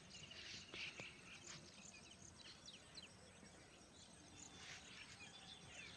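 Faint outdoor ambience with scattered short bird chirps and calls, including a quick run of ticking notes about half a second in, over a light background hiss.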